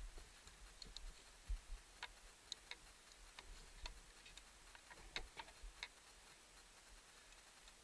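Near silence with faint, irregular clicks and ticks, one to three a second, and a few soft low bumps: the small knocks of a skier's gear picked up by a body-mounted camera.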